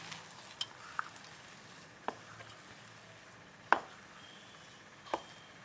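A hand mixing and kneading soaked sago pearls with peanut powder and potato in a stainless steel bowl: a soft, gritty rustle of the grains, broken by about five sharp clicks against the steel bowl, the loudest about halfway through.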